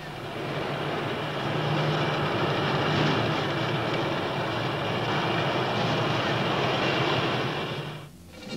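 Tanks and motorcycles driving: a steady, dense engine and track noise with a low hum. It drops away near the end.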